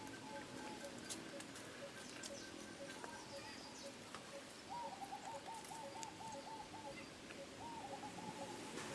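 A bird calling: a fast trilled call about five seconds in, then a shorter repeat near the end, over a faint steady background with a regular pulsing tone.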